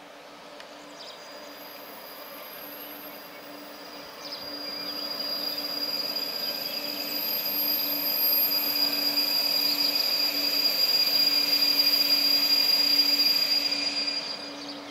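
Intercity train hauled by a Siemens Taurus (ES64U2) electric locomotive rolling slowly into the station, growing louder as it comes closer, with a steady high-pitched squeal from the train and a low hum underneath. The squeal fades away just before the end.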